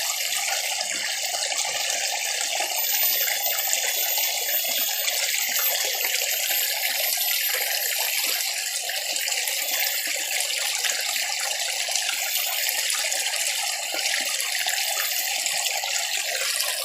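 Steady rush of flowing stream water, even and unbroken throughout.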